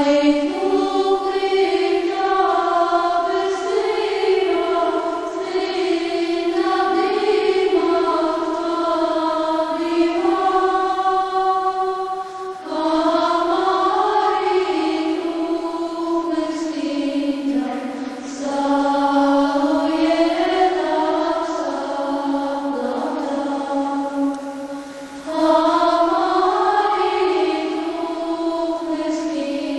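A choir singing a slow chant in long held notes that move up and down in steps, with short breaks between phrases about twelve and twenty-five seconds in.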